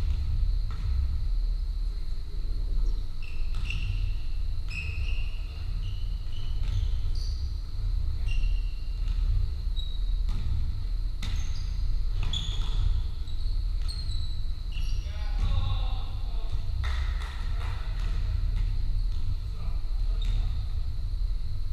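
Basketball pickup game in a large sports hall: a ball bouncing on the wooden floor, short high sneaker squeaks, and players' voices, over a steady low rumble.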